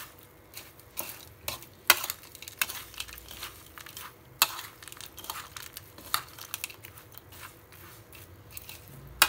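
A steel spoon stirring a dry, crisp bhel puri mix of puffed rice and namkeen in a ceramic bowl: irregular scraping and rustling, with sharp clinks of the spoon against the bowl, the loudest about two seconds in and just past four seconds.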